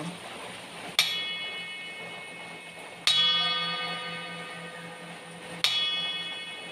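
A 45-year-old copper kinnam (a shallow bowl-like dish) struck three times, about two seconds apart. Each strike rings on in many clear tones that fade slowly, going on in waves like an echo.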